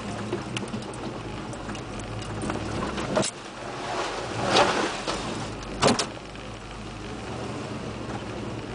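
Lifted GM 4x4 pickup's engine running while it drives over a rough trail, heard from inside the cab, with cab rattles. Sharp knocks about three seconds in and again near six seconds, and a louder rush of noise between them.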